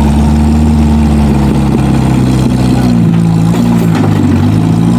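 Off-road 4x4's engine running steadily, its engine speed rising and falling a little from about halfway in.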